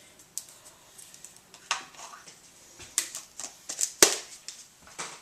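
Irregular clicks and knocks of kitchen items being handled and set down, about half a dozen, the loudest a sharp knock about four seconds in.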